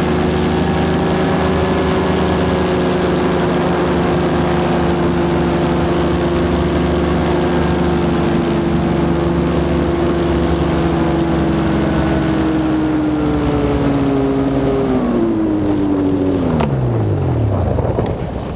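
Paramotor engine and propeller running steadily at a constant pitch, then shut off: over the last few seconds the pitch falls steadily as the engine winds down to a stop.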